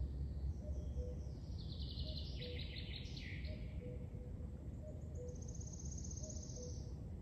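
Songbirds singing in a forest: a run of quick notes falling in pitch about two seconds in, then a fast, high trill near the end, over a steady low background rumble.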